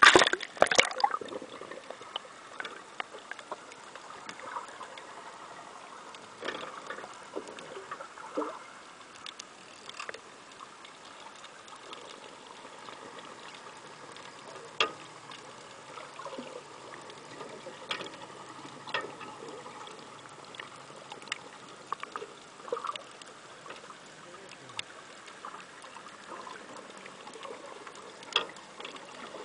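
Water splashing as the camera goes under the surface, then underwater sound: a steady hiss with scattered sharp clicks and ticks every second or two.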